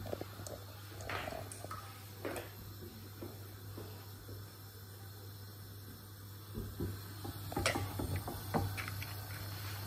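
Silicone spatula stirring and scraping eggs frying in a non-stick frying pan: a scattering of soft scrapes and knocks, busiest in the last few seconds, over a steady low hum.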